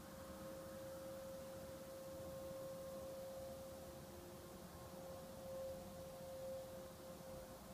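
A steady, unexplained humming tone holding one pitch, with weaker tones wavering faintly around it over a low background rumble.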